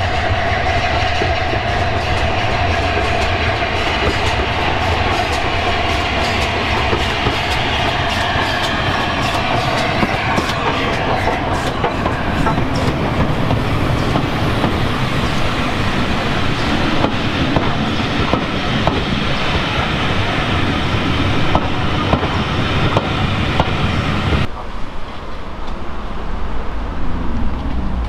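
LNER A4 Pacific steam locomotive no. 60009 and its train of coaches running past, wheels clicking over the rail joints, with a steady high ringing tone through the first ten seconds or so. About 24 seconds in the sound drops to a quieter low rumble.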